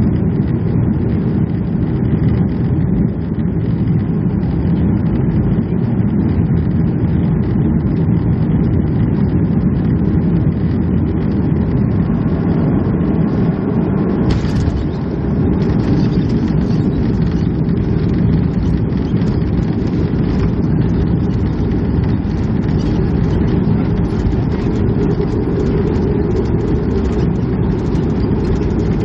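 Cabin noise of a Boeing 737-300 on landing: a steady rumble of its CFM56 jet engines and the airflow. About halfway through there is a brief sharp jolt, the touchdown, after which the sound turns rougher, with rattling and hiss as the aircraft rolls out on the runway.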